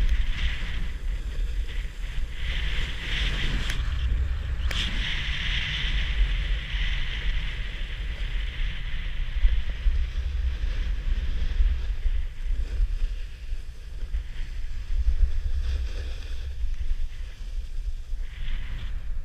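Wind buffeting an action camera's microphone during a downhill run, a steady low rumble. Over it is the hiss of edges sliding over groomed, packed snow, strongest in the first half.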